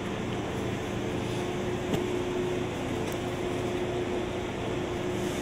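Steady hum of laser-surgery equipment, with a constant tone, and a single click about two seconds in.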